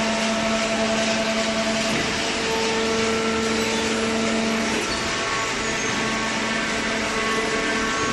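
Hydraulic power unit of a vertical baler, an electric motor driving the hydraulic pump, running with a steady hum over a dense mechanical noise; the hum changes tone about five seconds in as the load on the pump changes.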